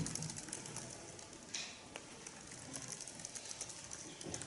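Quiet room tone with faint scattered ticks and small rustles, and a short soft sound near the end.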